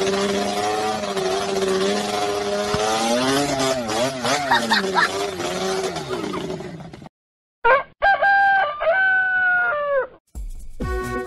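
Quad bike engine running and revving up and down for about seven seconds, then cutting off. After a short gap comes a series of long, high, pitched calls that fall off at their ends, and music begins near the end.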